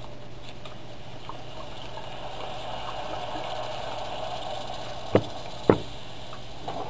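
Worcestershire sauce pouring from a bottle into roux in a stainless saucepan, a faint steady trickle. Near the end, two sharp knocks about half a second apart.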